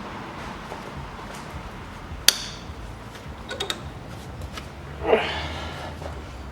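Hand-tool work on a car's stabilizer link nut: a sharp metallic clink a little over two seconds in, a few light metal ticks, and a short rising squeak about five seconds in.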